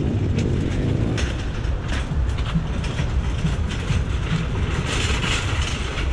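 Metal shopping cart rolling over pavement, its wheels and wire basket rattling over a steady low rumble.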